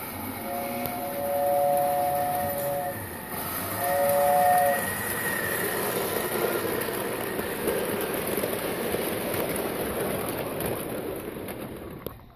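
Lionel 263 O-gauge toy steam locomotive sounding its two-note whistle, one long blast and then a short one, followed by the train's running noise as it rolls past on the metal track, dropping away near the end.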